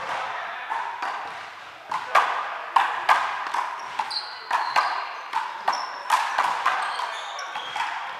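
Basketball dribbled on a hardwood gym floor, with sneakers squeaking, in a large echoing gym. From about two seconds in come sharp bounces, irregular at about two a second, mixed with several short high-pitched squeaks.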